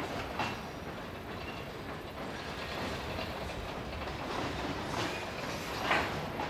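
Freight train of covered hopper cars rolling across a steel girder bridge: a steady rumble of wheels on rail, broken by a few sharp wheel clacks, the loudest about six seconds in.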